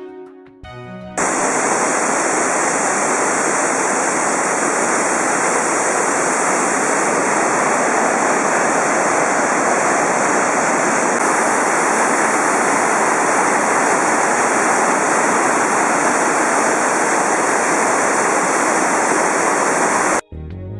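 Waterfall: a loud, steady rush of falling water that starts abruptly about a second in and cuts off just before the end.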